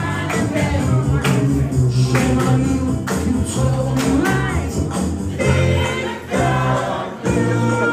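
A male vocal group singing live through microphones and a PA: a lead voice over backing harmonies, with amplified music, a steady beat and hand claps.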